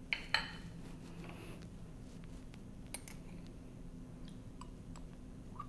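A few light clicks and taps from a glass jar of Dijon mustard being handled: its lid coming off and a metal spoon knocking against the glass as mustard is scooped out. The sharpest clicks come just after the start and about three seconds in.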